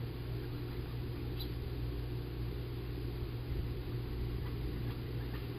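Steady low hum, even throughout, with a few faint ticks.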